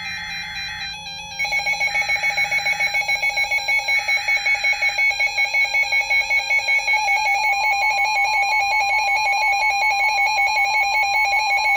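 Weather alert radio going off for a NOAA Weather Radio warning: its electronic alarm beeps rapidly, about four beeps a second. Under it come the three short data bursts of the SAME alert header, then from about seven seconds in the long steady warning alarm tone that comes before the warning message.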